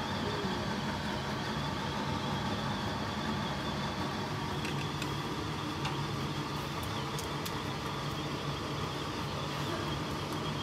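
Soup boiling hard in a pan on a gas burner: a steady rush with a few faint pops in the middle.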